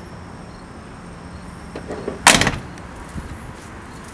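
A vehicle door slammed shut once, about two seconds in, with a couple of faint clicks just before it.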